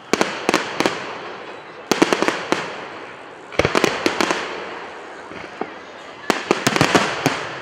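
Fireworks display: four volleys of quick, sharp bangs, several reports in each, with the echo fading away between volleys.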